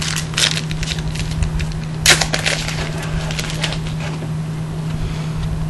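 Crackling and crinkling of a foil trading-card pack being torn open and handled, in quick irregular clicks with the loudest rip about two seconds in, over a steady low hum.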